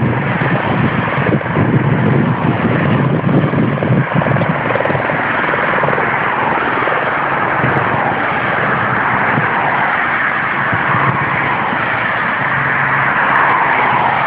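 Support cars of a cycling race convoy passing on the road, heard as a loud, steady rush of noise with a fast low throbbing in the first few seconds.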